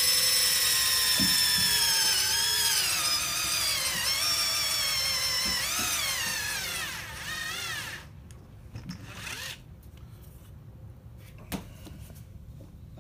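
Cordless drill boring into the end grain of a green-wood branch section, its motor whine dipping in pitch several times as the bit loads up in the wood. It winds down and stops about eight seconds in, and a few light knocks follow.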